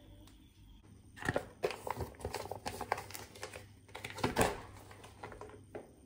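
Plastic bacon packet crinkling and rustling in the hands, in an irregular run of crackles, loudest about four seconds in.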